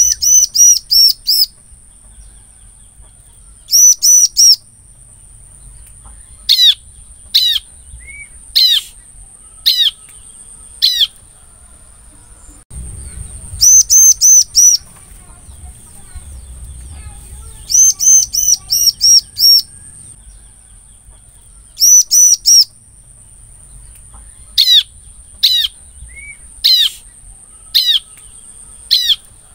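Bar-winged prinia (ciblek) singing: short bursts of fast, rapidly repeated sharp notes, alternating with runs of single down-slurred notes about a second apart.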